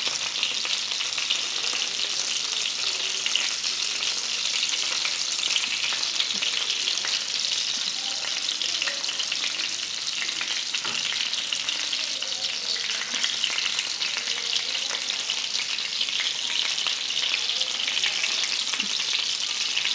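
Chicken lollipops deep-frying in hot oil on a low flame, nearly done: a steady sizzle with fine crackling throughout.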